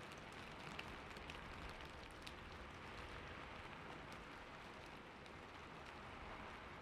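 Faint, steady falling-water ambience: a continuous hiss of splashing water with a few soft drip-like ticks.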